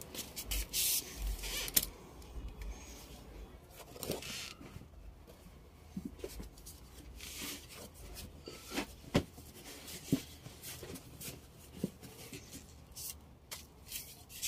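Scattered light clicks, knocks and rubbing from objects being handled and wiped during household cleaning, with a sharper knock about nine seconds in.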